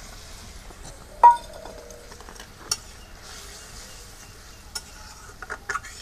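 Metal spatula stirring fried egg pieces into bubbling gravy in a metal pan, with a soft hiss throughout. One sharp, ringing clank of metal on the pan comes about a second in, and lighter taps and scrapes follow near the end.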